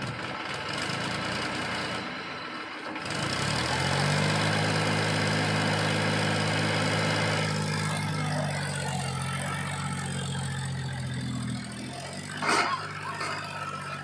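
Powertrac 434 DS Plus tractor's diesel engine under load as it pulls a loaded trolley up a dirt slope: a steady low engine drone that strengthens about three seconds in and eases a little after about eight seconds. A single sharp knock near the end.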